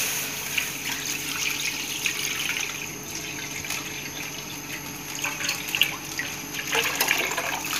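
Full cream milk pouring in a steady stream into a metal karahi, splashing as the pan fills.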